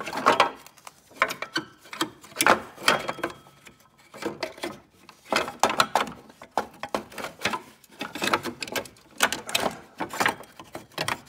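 Plastic rear timing-belt cover being worked by hand out of a small car engine's timing end: irregular clatter of knocks, clicks and scrapes as it catches on surrounding metal parts, in uneven bursts with a short lull partway through.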